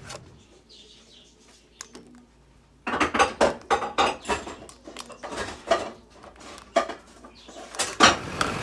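Metal spoon stirring thick atole in a stainless steel saucepan, scraping and clinking against the pot in quick, irregular strokes that start about three seconds in.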